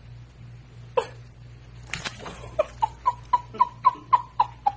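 Screech owl calling: one short note about a second in, then a run of short, evenly spaced hoots at about four a second, all on one pitch.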